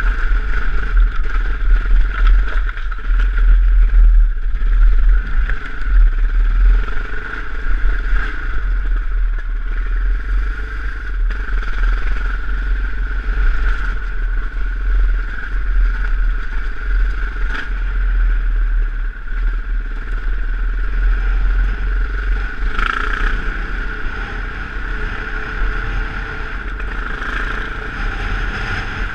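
KTM off-road motorcycle engine running steadily while riding a rough stony track, with a heavy low rumble and stones clattering and scraping under the tyres.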